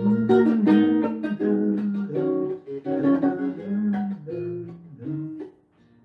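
Acoustic guitar playing an instrumental passage of a bard song: plucked chords and single notes about every half second, each ringing out, trailing off to a short pause near the end.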